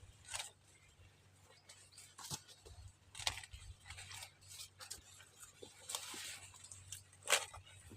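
Intermittent rustling and crackling of dry corn leaves and husks being handled, a few short bursts spread through, the loudest a sharp crackle near the end.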